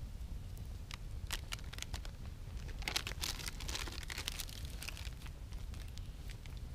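Wood campfire crackling with scattered sharp pops, and a burst of rustling and crunching around the middle as someone moves on the dry forest floor beside it.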